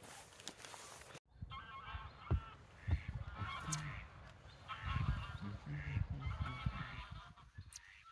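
Geese honking over and over, the calls starting about a second in, with low gusty wind rumble on the microphone underneath.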